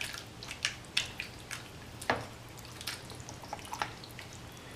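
Utensil working a thick, wet chili mixture: soft irregular clicks and wet plops, about a dozen in under five seconds, over a faint steady hum.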